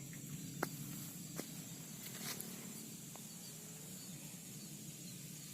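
Quiet outdoor ambience: a faint steady high insect hum, with a few soft clicks.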